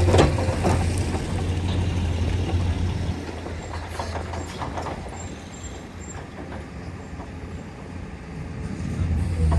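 Diesel engine of heavy road-paving machinery running with a low drone. It eases off about three seconds in and picks up again near the end, with a few metallic clanks.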